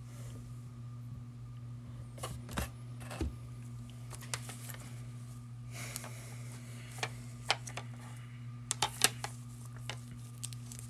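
Scattered light clicks and knocks of card boxes being handled and set down on a tabletop, over a steady low hum.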